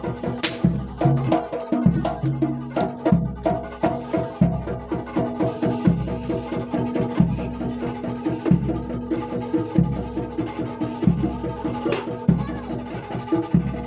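Jaranan Dor ensemble music: quick, dense hand-drum strokes over a steady low beat on the jidor bass drum, with held melodic notes running through it.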